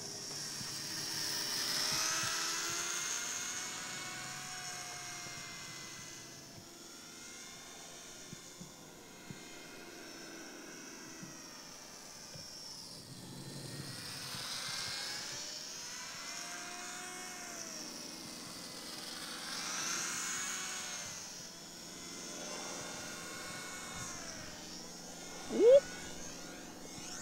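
Small electric motor and propeller of a JJRC W01-J3 Cub foam RC plane whining in flight, its pitch bending up and down and swelling louder on each pass. Near the end, a short, loud rising whine.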